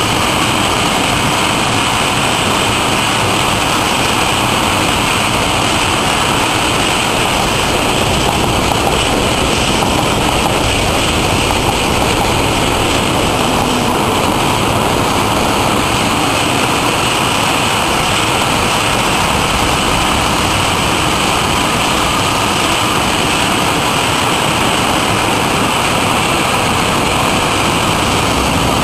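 Long container freight train passing, a steady rushing rumble of steel wheels on rail with no let-up. A red electric passenger train goes by about halfway through.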